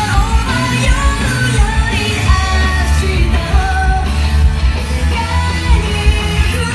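Loud rock song with a lead singer over electric band backing, a heavy bass and drum beat throughout.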